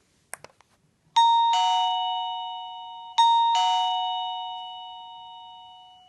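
Tomtop smart doorbell chiming a two-tone ding-dong twice, about two seconds apart, each high-then-low chime fading slowly. A few short clicks come just before the first chime.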